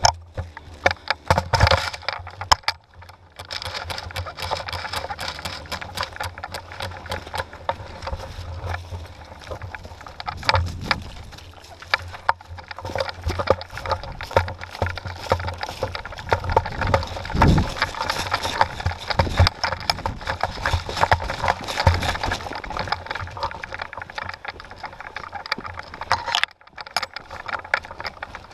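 Carrying and handling noise from a GoPro clamped to an airsoft gun's barrel: a steady run of crackles and knocks from footsteps through dry leaves and brush, and from the gun and camera mount being jostled.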